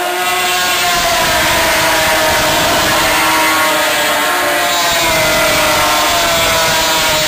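A pack of racing snowmobiles running flat out as they pass close by, several engine notes overlapping and sliding slowly down in pitch as they go past.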